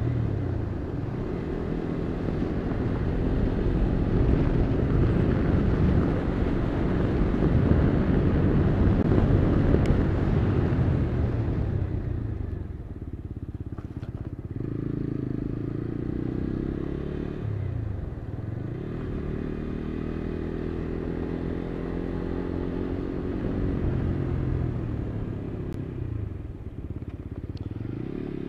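Motorcycle engine heard while riding. For about the first twelve seconds a heavy rush of wind and road noise covers it; after that the engine note comes through clearly and rises and falls several times.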